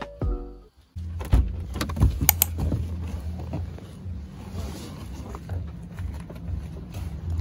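A car's engine running with a steady low hum, with a few sharp clicks and knocks as someone handles the open door and steps out onto gravel.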